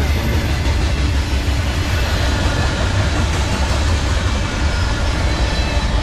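Freight cars of a CSX manifest train, boxcars and tank cars, rolling past on steel wheels and rail. A steady, loud rumble, heaviest at the low end.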